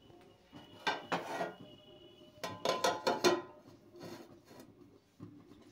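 Metal cookware knocking and clinking as a loaf tin in a steel pan is covered with a metal lid: a few separate clanks with a short ring, the busiest run of them about two and a half to three and a half seconds in.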